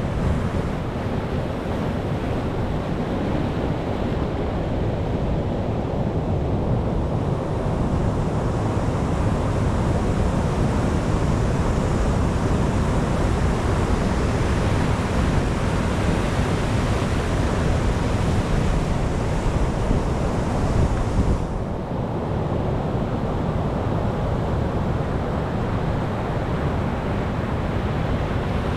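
Ocean surf: waves washing continuously onto a shore. The hiss of the water swells up over several seconds and drops off suddenly about 21 seconds in.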